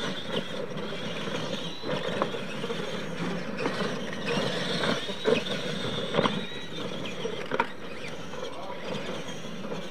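Clod Buster-style RC monster trucks racing on dirt: the high whine of their electric motors and gearboxes rising and falling with the throttle, over the hiss of tyres on loose dirt. Several sharp knocks and clatters as the trucks hit and land off the ramps.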